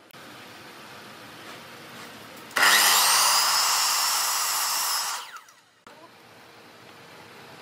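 A handheld power tool's motor runs at full speed for about two and a half seconds, then spins down. A quieter steady noise runs before and after it.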